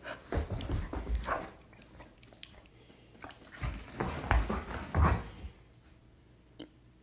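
Two dogs, a Doberman and a smaller grey-and-white dog, play-fighting: play vocalizations mixed with scuffling and thumps of paws and bodies, in two bouts, about a second long near the start and again around four to five seconds in.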